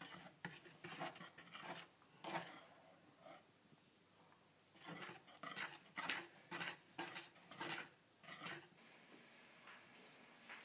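Wire whisk beating thick chocolate cake batter in a plastic bowl: faint, quick, irregular scraping and tapping strokes in two spells, the second longer, with a short lull between.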